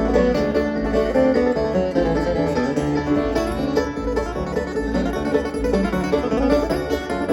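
Bluegrass band playing an instrumental passage, with banjo and acoustic guitar picking busy runs over an even bass pulse.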